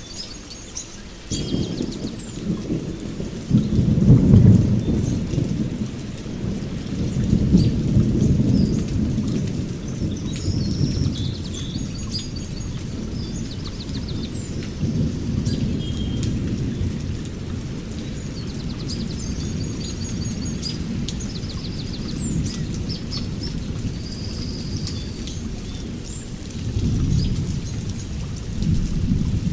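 Rolling thunder rumbling in waves over steady rain, with birds chirping.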